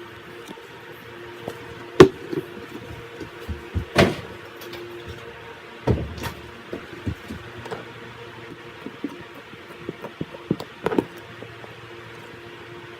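Slime being handled: scattered short pops and squelchy clicks, the loudest about two seconds in, over a steady hiss and hum.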